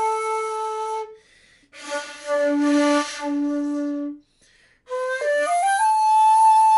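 Bamboo shakuhachi played in short phrases: a held note that stops about a second in, then a lower, very breathy note, a brief pause, and a quick run up to a high held note about an octave above the first.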